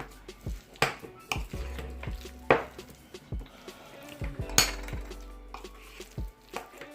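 A metal spoon knocking and clinking against a bowl, several separate sharp knocks, while spices are spooned in and stirred into a mashed-potato fuchka filling.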